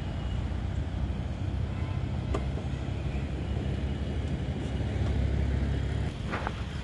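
Road traffic: cars and a bus passing on a wide road, with a steady low rumble that swells and then drops off sharply about six seconds in.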